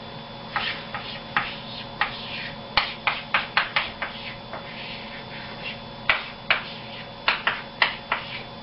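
Chalk writing on a blackboard: a run of short taps and scratches as letters are written, in two clusters with a pause about halfway through.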